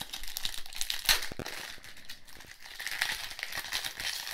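Foil wrapper of a Pokémon trading card booster pack crinkling as it is torn open and pulled apart, with a few sharper crackles about a second in.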